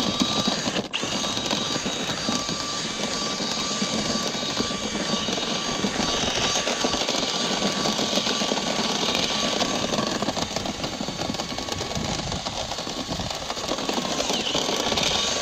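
Motor-driven dryer vent cleaning equipment running steadily: a rushing noise with a thin steady whine over it, cutting off right at the end.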